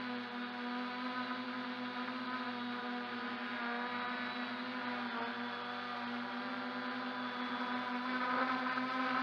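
MJX Bugs 2W quadcopter's brushless motors and propellers whirring in flight, picked up by a camera mounted under the frame: a steady whine with several pitches that gets louder near the end as the motors speed up.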